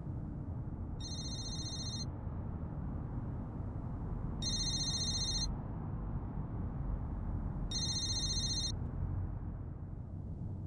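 Mobile phone ringing: three short, high-pitched electronic rings, each about a second long and spaced three to four seconds apart, over a steady low hum.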